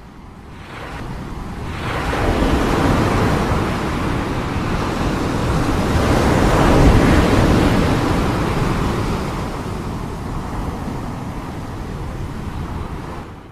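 A long swell of rushing noise, without pitch or rhythm, much like surf or wind. It builds over the first two seconds, is loudest around the middle, eases off, and cuts off suddenly at the very end.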